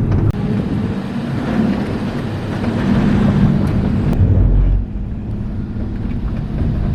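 Loud, steady rumble of a moving van on the road, with the sound changing abruptly about half a second in and again near five seconds.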